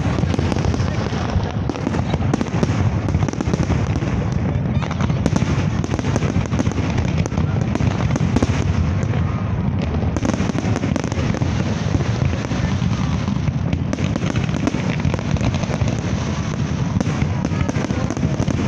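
Aerial fireworks display: a continuous barrage of shells bursting, deep booms overlapping one another with sharp cracks among them, with no pause.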